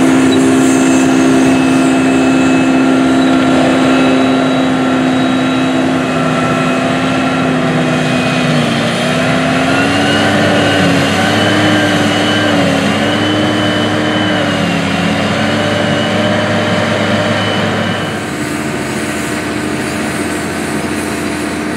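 Heavy diesel engines of a Krone Big X V12 self-propelled forage harvester and a silage truck running in the field. A steady engine note holds at first, then wavers up and down in pitch through the middle. It drops suddenly to a quieter engine sound a few seconds before the end.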